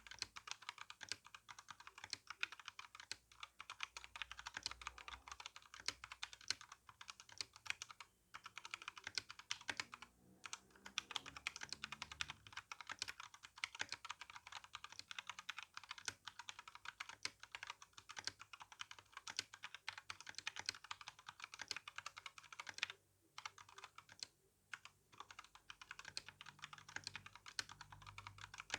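Steady typing on a Royal Kludge RK61 mechanical keyboard with tactile brown switches and GSA keycaps: a dense stream of key clacks broken by a few short pauses.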